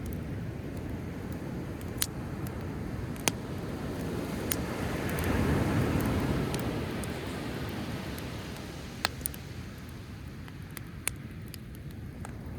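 Driftwood campfire crackling, with a few sharp pops scattered through, over the sound of sea waves; one wave swells in and washes back around the middle.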